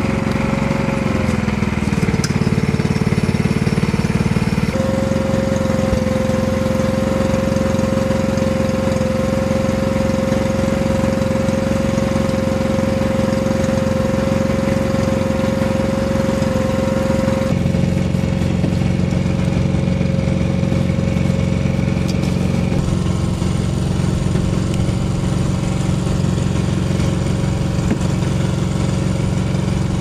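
Small fishing boat's engine idling steadily: an even mechanical hum with a steady whine over it, its pitch stepping slightly a few times.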